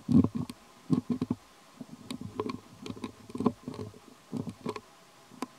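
Young long-tailed macaque chewing food: irregular bursts of munching with small mouth clicks, stopping near the end.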